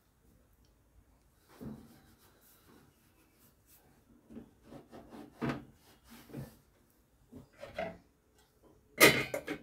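Faint scattered rubbing and knocking of kitchen handling, then about nine seconds in a short loud clatter as a stainless steel lid is set on the frying pan.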